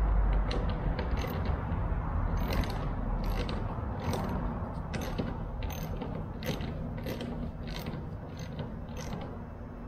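Hand ratchet clicking in short back-strokes, about one to two clicks a second, as a bolt on the landing gear leg's attach plate is run down.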